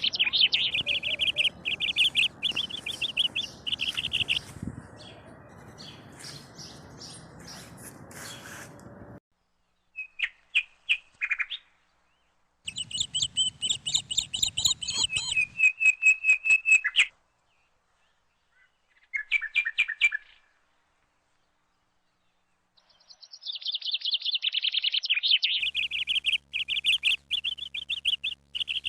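Small birds chirping in quick high trills, in several separate runs with stretches of complete silence between them.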